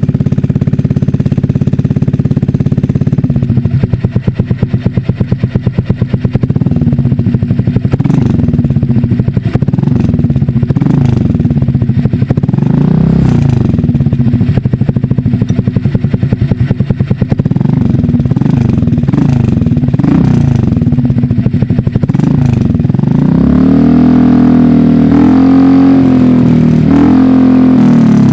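Honda Click scooter's single-cylinder engine through an SC Project aftermarket exhaust fitted with a single silencer insert, idling for about three seconds, then revved again and again in rising and falling blips, held higher near the end. The silencer insert, not yet fastened, rattles inside the pipe.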